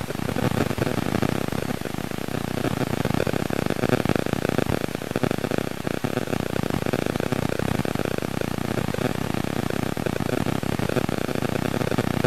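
A vehicle engine running steadily, its level wavering.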